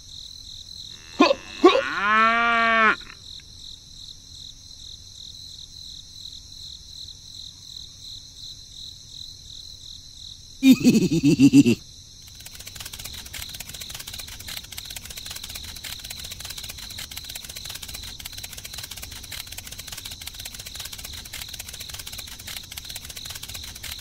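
A cow moos once, a rising-then-falling call of about a second, over steady background chirring of crickets. About eleven seconds in comes a second short, lower call.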